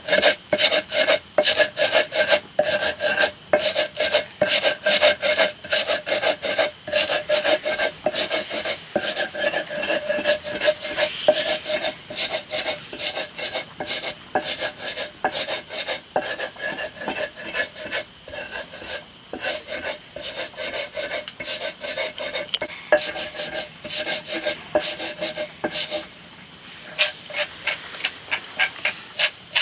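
Rapid rhythmic rubbing or scraping strokes, about three a second, over a steady ringing tone. There is a short pause near the end, then the strokes resume.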